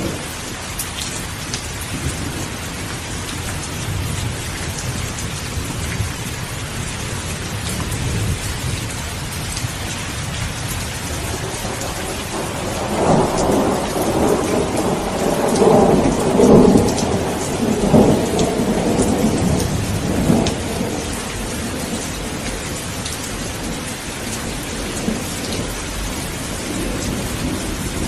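Steady heavy rain with a rolling thunderclap about halfway through, rumbling for several seconds before fading back into the rain.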